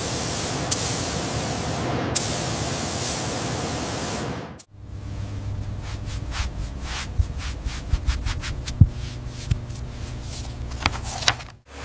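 Paint spray guns hissing steadily. About four and a half seconds in, this gives way to a run of irregular soft taps from a foam dauber dabbing paint through a stencil, over a low hum.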